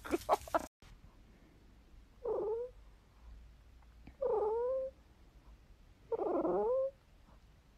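Boston Terrier making three drawn-out whining, talking-like calls, each under a second long and about two seconds apart. A couple of short dog barks come at the very start.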